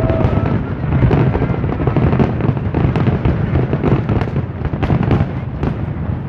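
Fireworks display: many shells bursting in rapid succession, a dense stream of sharp pops and crackles over a continuous low rumble.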